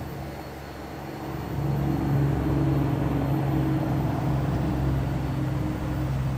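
A motor vehicle's engine running with a steady low hum, growing louder about one and a half seconds in and easing slightly near the end.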